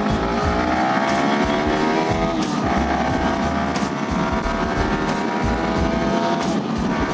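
Yamaha R15 V3's 155 cc single-cylinder engine accelerating hard, its pitch rising steadily in each gear, with an upshift about two and a half seconds in and another near the end. Wind buffets the microphone underneath.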